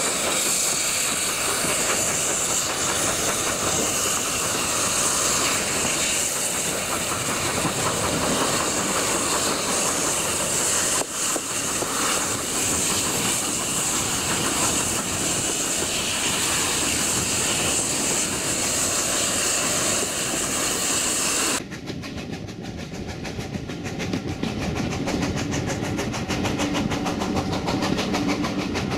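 Steam train heard from a carriage behind GWR Manor-class 4-6-0 locomotive 7828 Norton Manor: a loud, steady hiss of steam over the rush and rumble of the coaches on the rails. About three-quarters of the way through, the sound changes suddenly to a quieter, duller running noise of the train on the track.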